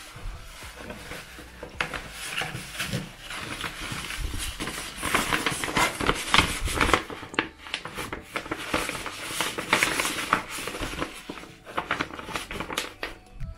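Paper rustling and crinkling as hands handle kraft paper bags and printed paper sheets, with the cotton drawstring bag brushing against them. The crackle is dense and gets louder from about a third of the way in, then eases near the end.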